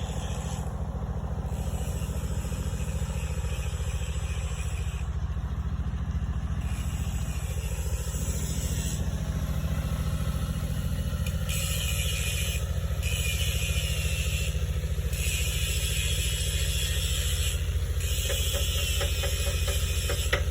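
Engine running steadily with an even low pulse, while a high hiss cuts in and out several times in the second half.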